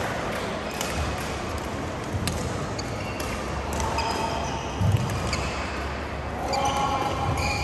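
Badminton court sounds echoing in a large hall: sharp shuttlecock strikes from the rackets, short high squeaks of court shoes on the mats around the middle and again near the end, and dull footfalls over a constant murmur of the hall.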